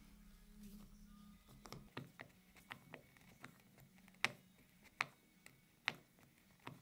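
Small sharp metal clicks, a dozen or so at uneven intervals, from a hand socket driver with a hex bit turning a threaded fitting into a wooden block. A faint low hum fades out about a second and a half in.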